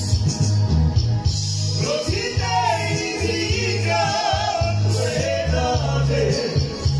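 Men singing a Romani song over a backing with a steady bass line and shaker-like percussion. The wavering sung line comes in about two seconds in and stops shortly before the end.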